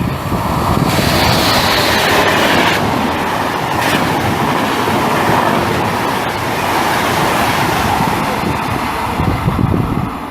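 Train passing through the station close by: a loud, steady rumble and rush of wheels on the rails.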